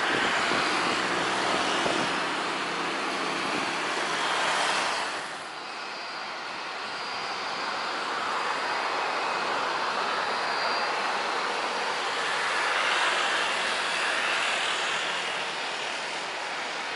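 Airliner jet engines: a loud, wide roar from a jet on the runway, then, after an abrupt change about five seconds in, a Super Air Jet Airbus A320-200 taxiing close by, its engines running with a steady rumble and a thin high whine.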